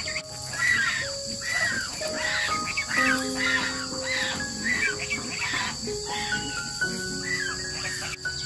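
Background music, a melody of held notes stepping up and down, over a steady high-pitched chirring of insects.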